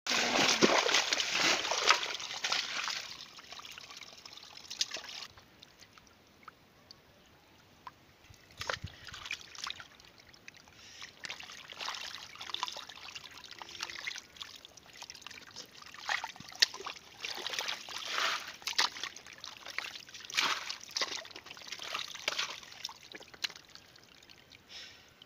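Shallow muddy water trickling and splashing in irregular bursts, loudest in the first three seconds, as fish stranded in mud and in a woven bamboo basket flap about.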